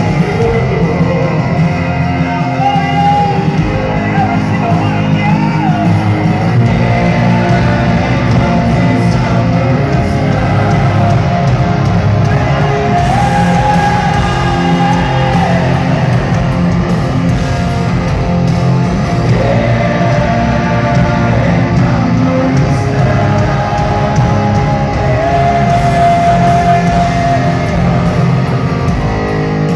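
Hard rock band playing live in a large hall, heard from the crowd: electric guitars, bass and drums with a singer holding long notes.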